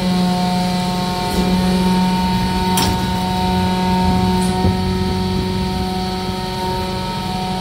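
Press-type rear-loader garbage truck's hydraulic compactor cycling: the engine-driven hydraulic pump runs with a steady hum while the press plate sweeps the hopper, with a sharp click about three seconds in and a few light knocks a little later.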